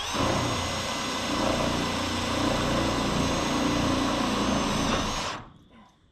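Power drill running steadily for about five seconds on the carport's sheet-metal roof, spinning up with a brief rising whine at the start and stopping a little before the end.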